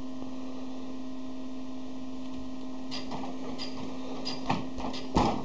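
Low steady hum at first, then from about three seconds in a wooden rocking chair rocking: a few creaks and knocks, the loudest near the end.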